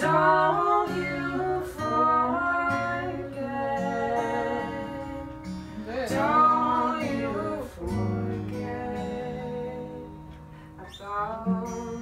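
Acoustic guitar playing a slow, gentle song, with a voice singing a melody over it. The sound dips quieter shortly before the end, then picks up again.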